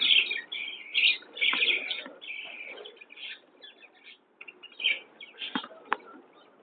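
A flock of budgerigars chattering and chirping, busy at first and thinning to scattered calls, with two sharp clicks near the end.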